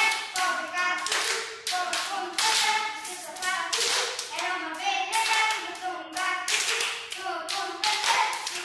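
Group of children playing a hand-clapping game, clapping their own and each other's hands in a steady rhythm while chanting the rhyme together.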